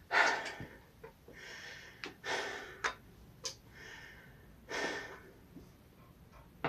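A man breathing out in about five short breaths, with a few light clicks of tools or engine parts being handled between them.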